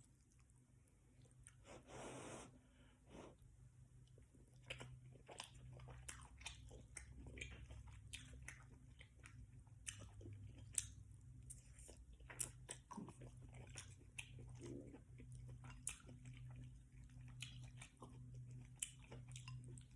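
Faint close-up chewing of beef lo mein noodles, with many small, scattered mouth clicks.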